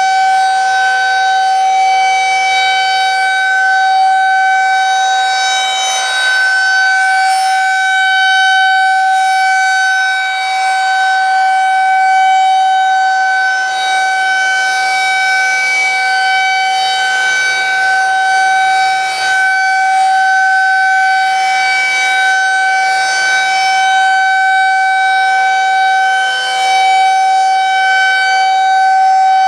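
Federal Signal 2001-SRN electromechanical civil defense siren sounding a loud, steady single wail held at full pitch, its loudness swelling and dipping slightly as the rotating siren sweeps around.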